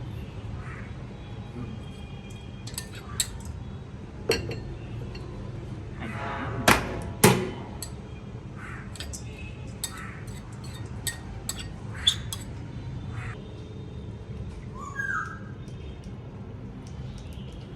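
Scattered clinks and knocks of kitchen bowls and utensils during food preparation, the loudest two about seven seconds in, over a steady low hum. A short squeak about fifteen seconds in.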